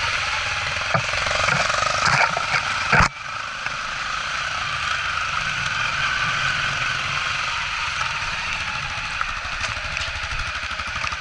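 Dirt bike engine running steadily as the bike rides a rough dirt trail, with sharp knocks from the bike jolting over ruts in the first three seconds, the loudest about three seconds in.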